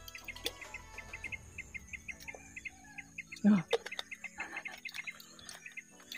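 Birds chirping in quick runs of short, high notes, with one brief louder, lower sound about halfway through.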